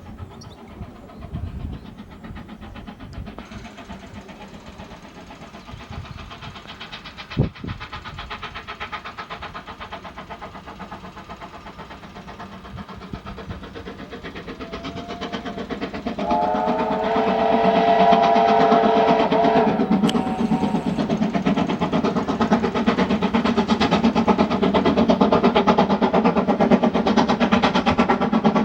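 A steam locomotive, the visiting American 2-8-0, approaches and grows steadily louder, its exhaust beating fast and evenly. About sixteen seconds in it sounds a multi-note whistle for about four seconds. A single sharp knock comes about seven seconds in.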